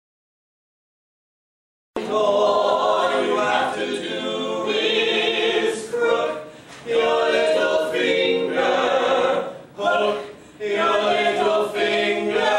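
Total silence for about two seconds, then a small stage cast of men and women singing together in phrases, with short breaks between them.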